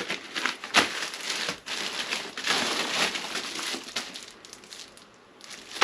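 Packaging and bag fabric rustling and crinkling as soft motorcycle luggage is unpacked and handled, in irregular bursts with a couple of sharper snaps.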